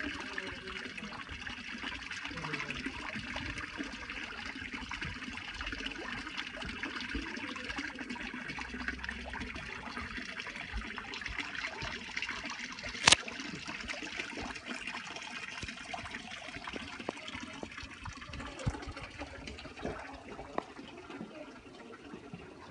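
Steady rush of running water, with one sharp click about thirteen seconds in.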